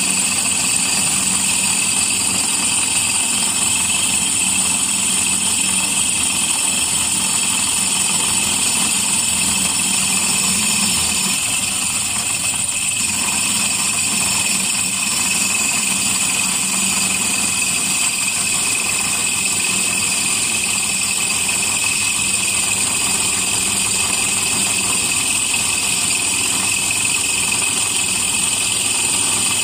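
Bench drill press motor running steadily while its hollow core bit grinds a hole into the shoulder of a thick glass bottle: an even motor hum with a high grinding hiss over it.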